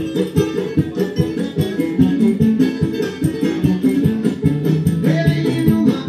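Music: a guitar playing quick plucked notes over a steady rhythm.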